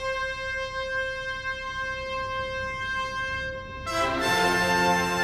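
Background music: one long held note, then about four seconds in a louder, fuller chord comes in.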